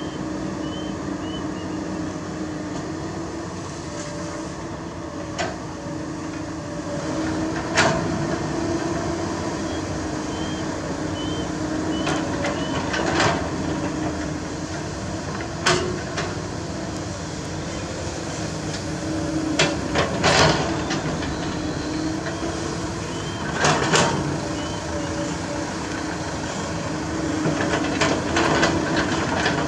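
Komatsu PC200 hydraulic excavator and a Mitsubishi Colt Diesel dump truck running steadily, with sharp clanks and thuds every few seconds as the bucket and rock strike the truck's steel bed.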